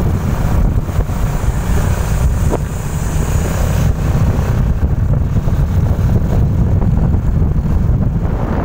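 Wind rushing over the microphone on a moving motorcycle, with the motorcycle running underneath.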